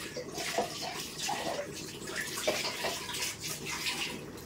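Water sloshing and splashing as a blender jar is shaken out with water, rinsing the last of the blended chilli spice paste from the jar.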